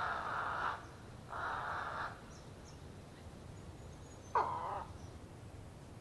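Australian white ibis giving harsh, hoarse croaking calls: two of about a second each in the first two seconds, then a shorter, falling call about four and a half seconds in.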